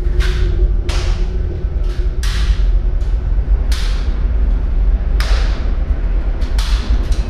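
Sharp slaps and clacks of hands striking a rifle during silent rifle drill, each ringing briefly in a large hall, coming irregularly about once a second with some in quick pairs. A steady low hum runs underneath.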